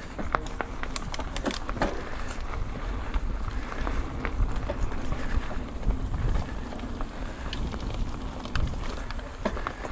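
Mountain bike ridden over rough ground: a steady rumble with many scattered clicks and rattles as it goes over bumps, and wind buffeting the microphone.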